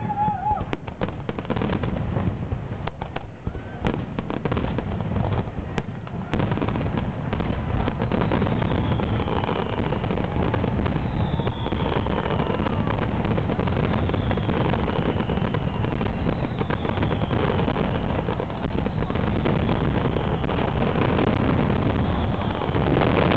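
Fireworks display in a dense barrage. It opens with rapid crackling bangs for the first six seconds, then merges into a continuous rumble of bursts and crackle, with a few high falling whistles every couple of seconds.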